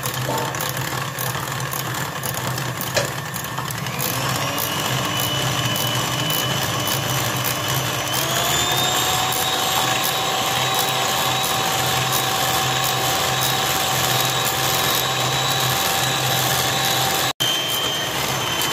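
Electric hand mixer running, its beaters whisking egg, sugar and oil into a batter. The motor whine steps up in pitch twice, about four seconds in and again about eight seconds in, then holds steady.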